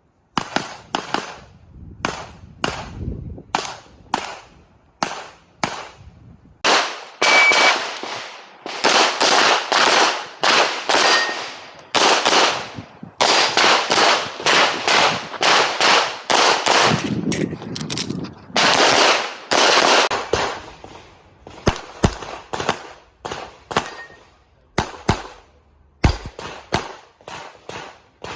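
Handgun shots fired in rapid succession during an IPSC practical-shooting stage: dozens of sharp cracks, many in quick pairs, each trailing a short echo, with the densest, loudest strings in the middle.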